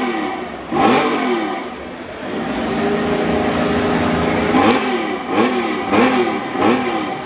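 Motorcycle engine revved by hand while standing. One throttle blip comes about a second in, then the engine settles to a steady idle, then four quick blips follow in a row, each a sharp rise and fall in pitch.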